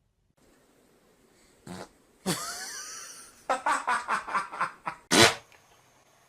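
A series of farts: a short one, a longer one with a wavering pitch, a quick sputtering run of about seven pops, then a loud sudden blast near the end.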